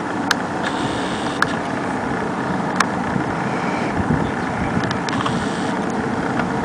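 Wind rushing over the microphone: a steady rushing noise with an uneven low rumble, and three sharp clicks in the first three seconds.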